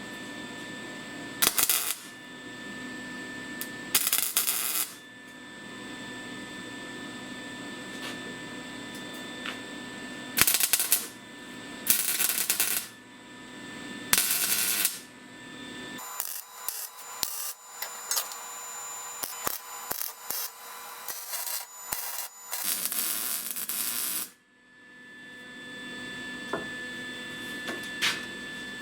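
Electric arc welder joining steel rod: a series of short crackling bursts about a second long, then a longer run of rapid crackling and clicks, over a steady hum between welds.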